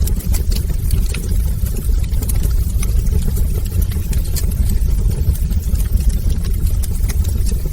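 Fireplace fire burning: a steady low rumble of flames with scattered sharp crackles and pops.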